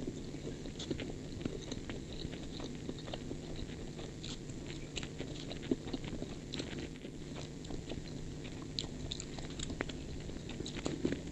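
Close-miked chewing of a mouthful of fried rice, wet mouth sounds with many small sharp clicks, and a metal spoon scooping rice in a styrofoam box near the end.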